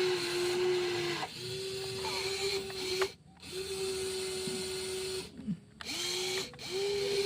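Small electric motors of a WLtoys 16800 RC excavator whining at one steady pitch in runs of one to two seconds, stopping briefly twice as one movement ends and the next begins.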